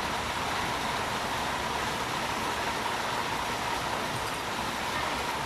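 Steady traffic noise of a busy street, with no distinct events.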